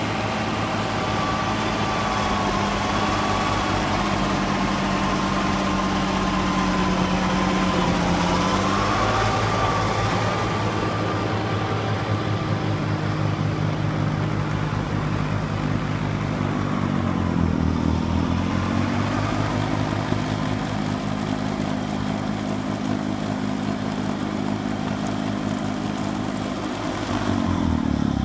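Fendt tractor engine running under load as it drives a Westa W900 tractor-mounted snow blower that is throwing snow. The engine pitch shifts a few times, dipping and recovering about two-thirds of the way through.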